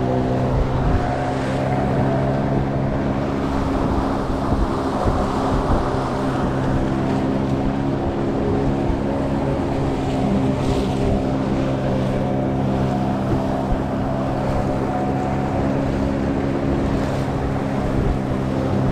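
Boat outboard engine running steadily at cruising speed, with wind buffeting the microphone and water rushing and slapping at the hull in a rough sea.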